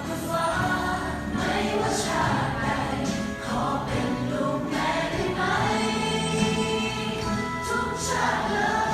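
A choir of students singing a song together with musical accompaniment.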